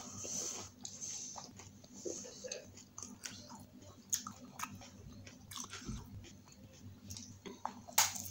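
Person chewing pani puri, the crisp fried puri shells crunching with wet mouth sounds, and biting into another water-filled puri about eight seconds in with the loudest crunch.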